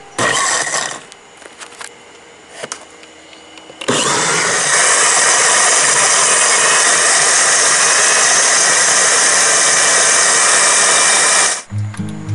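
A small electric motor running loud and steady for about eight seconds. It starts suddenly about four seconds in with a brief rise in pitch and cuts off suddenly near the end. A short burst of the same kind of noise comes just after the start.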